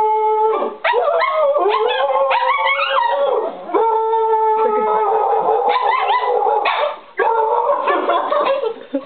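A small pack of pet dogs (a shih tzu-poodle, a Pomeranian, a Chihuahua and a Lhasa apso-pug) howls together in wavering, overlapping pitches, with yips among the howls. A person howls long, steady notes through cupped hands at the start and again about four seconds in, leading the dogs.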